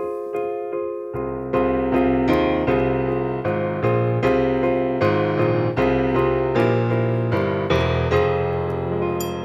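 Electronic keyboard on a piano sound, played with two hands: the right hand plays repeated chords and the left hand plays a melody in the low notes. Only the higher notes sound at first, and the low notes come in about a second in. The last chord fades out near the end.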